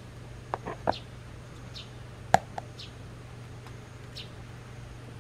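White wagtail giving a few short, high chirps that fall in pitch, with several clicks and taps in between, the sharpest a little over two seconds in. A low steady hum underneath.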